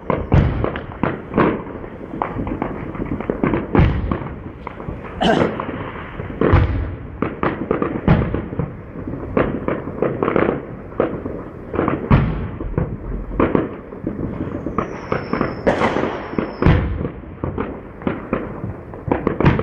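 Aerial firework shells bursting in a dense, continuous barrage: overlapping bangs and crackling, with heavier booms every few seconds.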